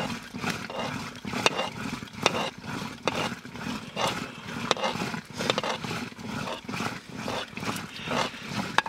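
Flat wooden stick stirring thick maize-flour porridge (dhido) in a blackened pot over a wood fire: sharp scraping knocks of the stick against the pot, about one a second, over a low steady rumble.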